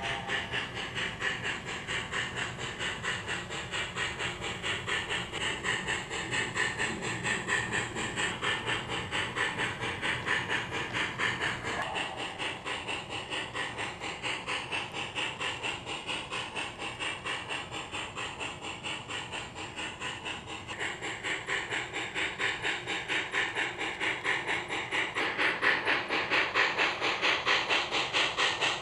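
Digital sound system of an M.T.H. HO-scale New York Central Dreyfuss Hudson model steam locomotive playing a steady steam chuff with hiss, about three chuffs a second, as the model runs.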